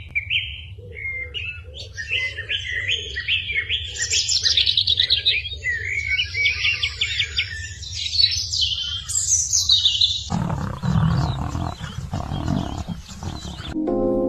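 Jungle ambience sound effect: many birds chirping and trilling in quick, repeating calls over a steady low rumble. About ten seconds in, a big cat's roar lasts some three seconds and cuts off suddenly.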